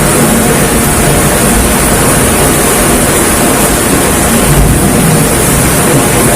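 Heavy rain pouring down in a loud, steady hiss, with wind rumbling on the microphone.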